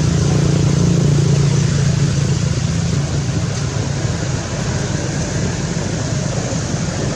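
A motor engine running steadily: a low hum over a constant hiss, fading somewhat about four and a half seconds in.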